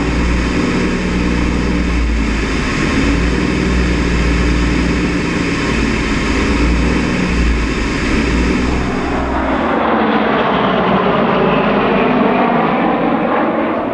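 P-38 Lightning's twin Allison V-12 engines and propellers running steadily, heard up close from on board. About nine and a half seconds in, this gives way to a formation of P-38s passing overhead, heard from the ground, with a sweeping, phasing engine sound as they fly by.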